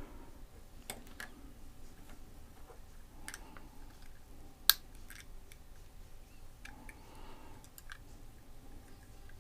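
Small sharp clicks and taps of a diecast toy truck's parts being handled and fitted back together by hand, with one louder snap about halfway through.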